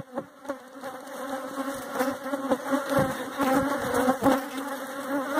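Honeybees buzzing close around the microphone, several wavering tones at once, from a colony that has turned defensive and attacked the beekeepers. A few short knocks from the phone being handled.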